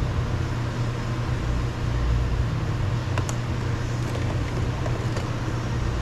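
Light plastic clicks as a flathead screwdriver pries the window switch panel out of the door trim, the sharpest about three seconds in, over a steady low hum.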